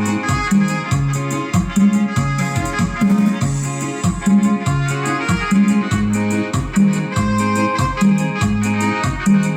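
Live band playing Mixtec dance music: a keyboard melody over a bass that alternates between two notes on a steady beat, about two notes a second.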